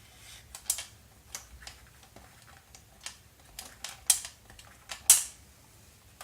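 Vinegar-soaked tissue scrubbing corroded metal battery springs in a plastic battery compartment: irregular scratchy clicks and rasps, a few louder ones near the end.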